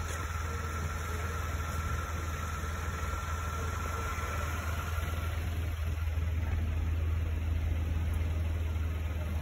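Car engine idling: a steady low hum. A faint steady high whine runs along with it and stops about halfway through.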